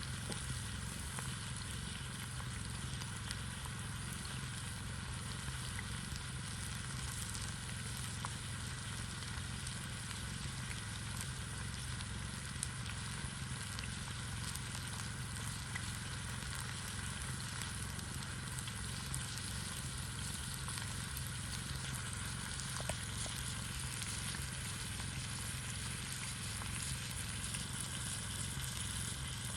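Food sizzling steadily in a pan over a campfire, with faint scattered crackles and a low steady rumble underneath.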